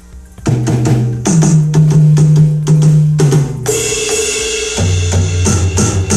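AMW ED3 electronic drum kit played through an amplified speaker, on its preset kit 7, which has an open sound. A groove starts about half a second in, with kick and snare hits, and a cymbal crash comes in about three and a half seconds in.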